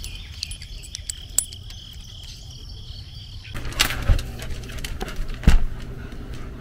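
Insects droning in a steady high, shrill tone that cuts off suddenly about halfway. After it come a rustle and, near the end, one sharp knock.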